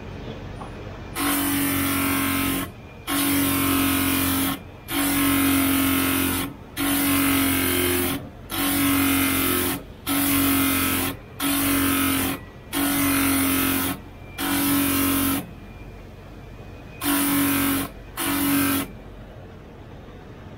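K9 crystal being ground on a flat rotating lapidary wheel: about eleven harsh grinding bursts, each a second or so long, as the piece in the faceting arm is pressed to the wheel and lifted off again. The wheel's motor hums steadily in the short gaps and after the last burst.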